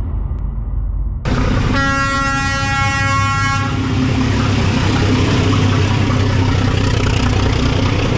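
Road traffic with engines running, and a vehicle horn sounding once about two seconds in, held on one pitch for about two seconds.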